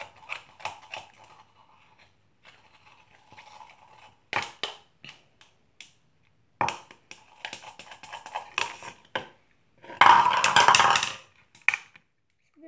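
Homemade glue-and-Tide slime being scraped and pulled out of a plastic cup by fingers, making sticky crackling and clicking noises, with a louder, denser crackle lasting about a second near the end.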